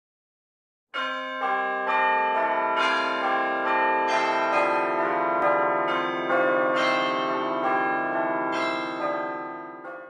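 Bell-like chimes as title music: struck, ringing notes, a new one about twice a second, overlapping into a sustained peal. They start about a second in and fade out at the end.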